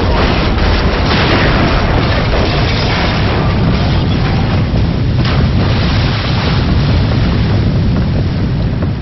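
Mark 48 torpedo exploding beneath a destroyer escort's hull: a loud blast that carries on as a continuous deep rumble while the water column erupts around the ship.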